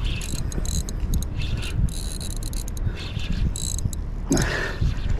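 Daiwa Exist 5000 spinning reel cranked against a hooked yellowtail kingfish, giving short high buzzing bursts every half second or so over a low rumble of handling noise.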